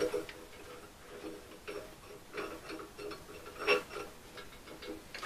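A series of irregular light metallic clicks and clinks from the lifting strap and crane hook being worked on the engine block, the loudest a little before four seconds in.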